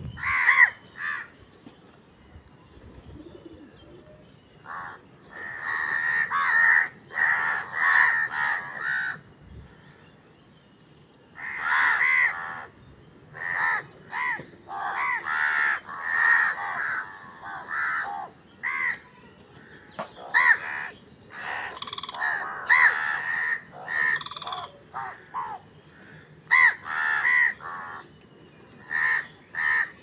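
A flock of house crows cawing while squabbling over food: short caws in overlapping clusters, with a couple of brief lulls between them.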